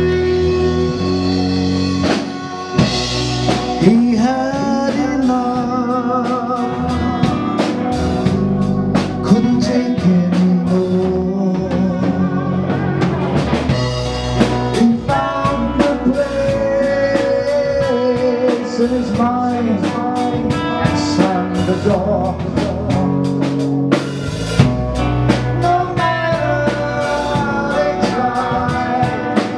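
A live heavy metal band playing: electric guitars, bass guitar and drum kit, with a male singer holding long notes with vibrato over a steady drum beat.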